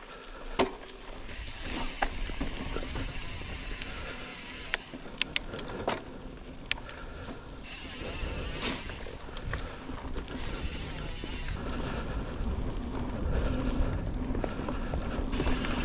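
Evil Following mountain bike rolling along a dirt singletrack: tyre and drivetrain noise with a few sharp clicks and rattles, growing louder over the last few seconds.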